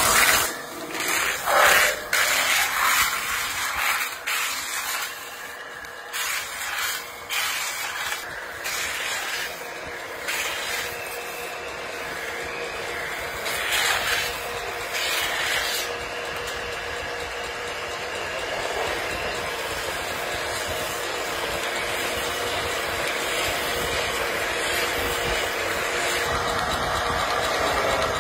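Hand-held turning tool scraping against an aluminium pot spinning on a belt-driven lathe, in uneven strokes at first and then as a steadier scraping, over the lathe's steady running.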